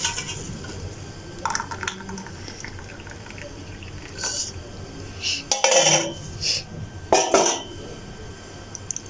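Kahwa being poured from the pot into a cup, with a few clinks and knocks of the pot and crockery, the loudest about six and seven seconds in.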